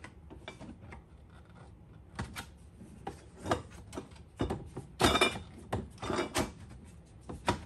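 Hard plastic clicking, knocking and rubbing as the shortened telescoping handle of a Milwaukee Packout rolling tool box is worked back into place on the box, with a cluster of louder knocks about five seconds in.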